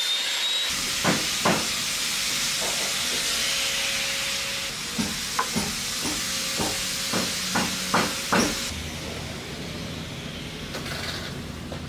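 Table saw running and cutting a groove in hardwood strips: a steady hissing noise with a string of short, sharp wooden knocks as the boards are fed and handled. The saw noise stops a few seconds before the end.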